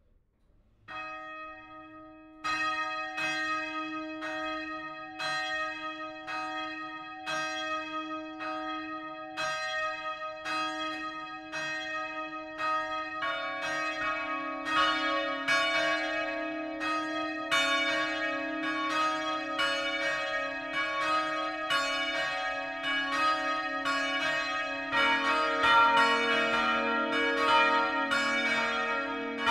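Church bells ringing in one after another: a single bell starts striking about a second in, a lower-pitched second bell joins near the halfway point, and a third joins near the end, building up to a full peal with overlapping strikes.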